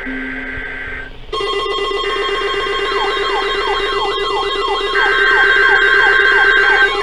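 Several electronic alert tones sounding at once. After a second of steady tones, a loud buzzing alarm starts, with repeating falling chirps and a warbling high tone over it, and a steady high tone joins about five seconds in.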